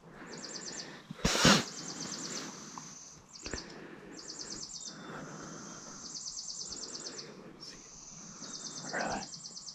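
A songbird's high, rapid trill, repeated in phrases of one to two seconds over a low background rustle. About a second and a half in comes a brief loud rustle or thump.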